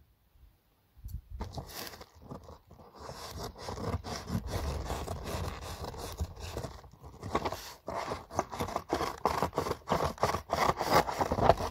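Paper-wrapped parcel scraping and rustling as it is handled on a table, then small scissors cutting through the paper wrapping in quick rasping strokes over the last few seconds. The sound starts after about a second of quiet.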